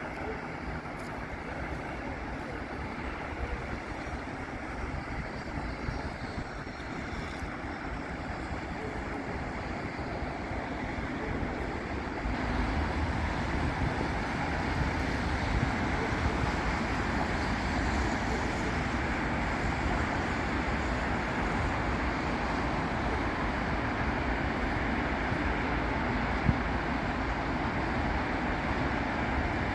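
Traffic on a busy city avenue: cars and buses passing in a steady wash of engine and tyre noise, growing louder about twelve seconds in.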